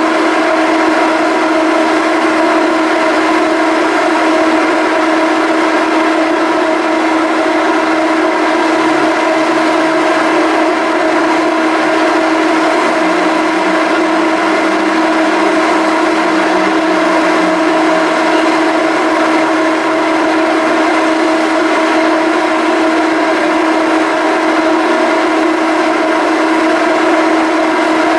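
Large ferry's engines running with a loud, steady droning hum held at one pitch; a fainter, lower tone swells up and back down around the middle.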